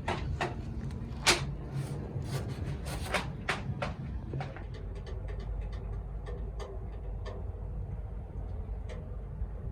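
A series of sharp wooden knocks and clicks, the loudest about a second in, then lighter, sparser ticks over a steady low hum.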